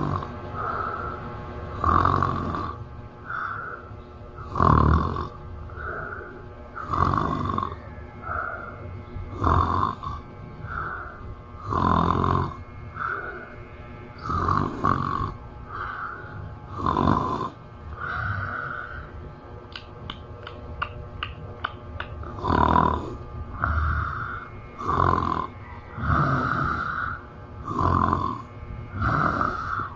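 A woman snoring loudly in a steady rhythm, a heavy snore about every two and a half seconds with a softer one between each pair. The snoring pauses for a few seconds in the middle, where a quick run of clicks is heard, then resumes.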